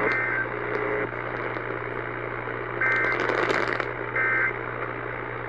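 Emergency Alert System end-of-message data bursts: three short, buzzy two-tone digital bursts signalling the end of the alert, over AM radio hiss and a steady hum.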